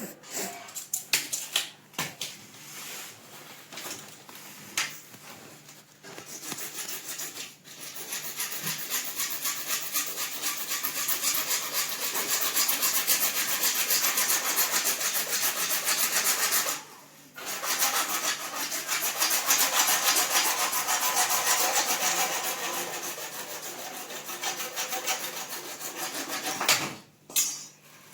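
Hacksaw cutting through uPVC pipe in quick back-and-forth strokes, starting after a few scattered knocks, pausing briefly about two-thirds of the way through, then sawing on until it stops near the end.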